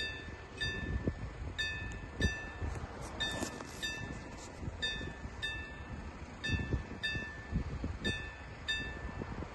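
Railway level-crossing warning bell ringing in pairs of short dings, about two strokes every second and a half, signalling that a train is approaching.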